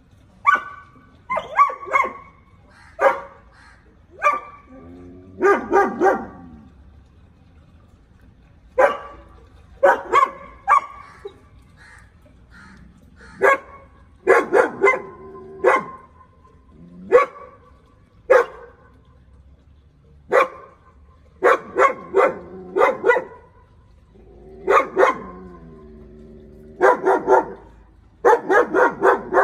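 German Shepherd guard-barking at an intruder: loud, sharp barks, some single and some in quick runs of two to four, with short pauses between.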